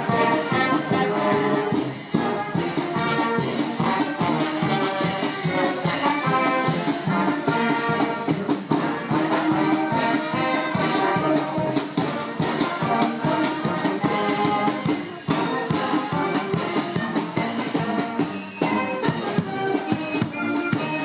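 Military brass band playing a march while marching, brass over a steady drumbeat.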